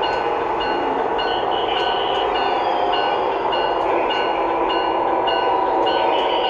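Lionel O gauge Amtrak Acela model train running on three-rail track: a steady rumble of wheels and motors. A short high ding repeats about twice a second over it.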